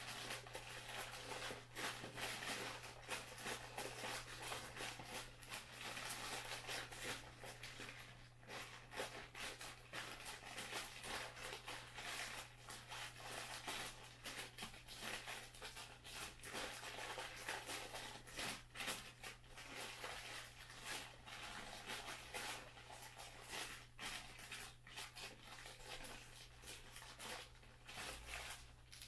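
Thin plastic bag crinkling and rustling in irregular bursts as small foam balls are shaken out of it into a blaster's hopper. A steady low hum sits underneath.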